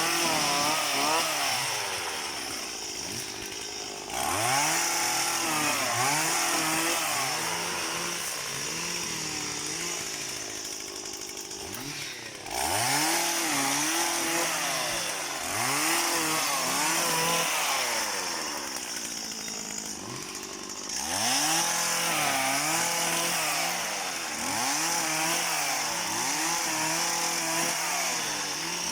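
Small petrol engine of a motorized oil palm pruning tool, revving up and down over and over, roughly once a second. It gets suddenly louder about 4, 12 and 21 seconds in.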